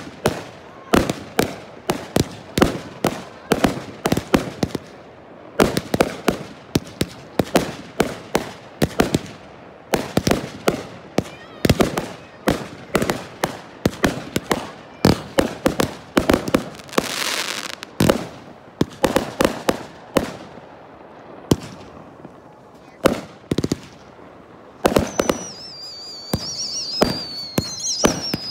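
Fireworks display: a rapid, nearly continuous string of aerial shell bangs, several a second. About seventeen seconds in there is a brief hiss, and near the end a high whistle falls slowly in pitch.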